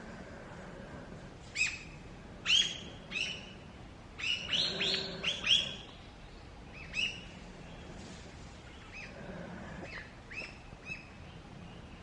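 Short, sharp bird calls repeated in irregular bunches, busiest about four to six seconds in, with quieter calls scattered after.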